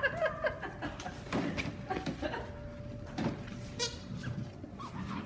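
Weimaraner puppies yelping and squealing as they wrestle in play: a scatter of short cries, several over a few seconds.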